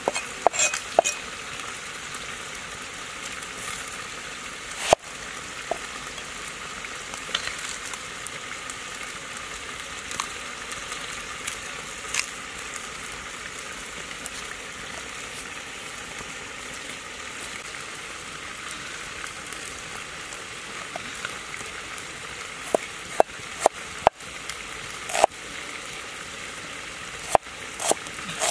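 Cleaver chopping a red onion on a wooden chopping block: a few scattered knocks in the first half, then a quicker run of chops in the last few seconds, over a steady hiss.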